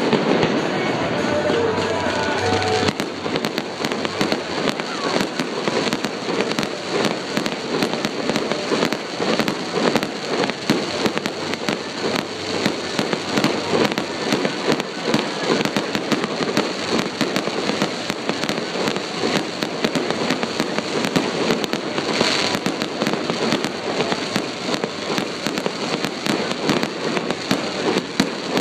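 Fireworks going off in a rapid, continuous run of bangs and crackling, with no pause.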